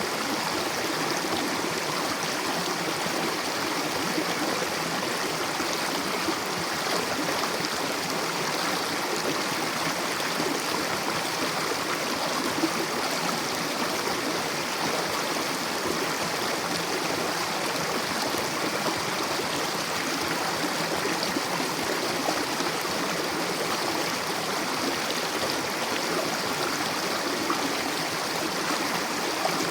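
Mountain river rushing steadily over rocks, a continuous even rush of flowing water with gurgling.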